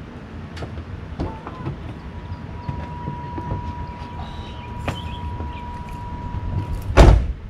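A car's steady electronic door-open warning tone sounds for about five seconds, after a few light latch clicks. It stops with a loud, deep slam of the car door near the end.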